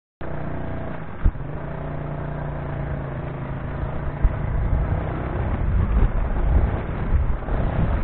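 Motorcycle engine running while riding, heard from a camera on the bike. Its steady hum gives way to a rougher, uneven low rumble after about four and a half seconds, with two short thumps, about a second in and about four seconds in.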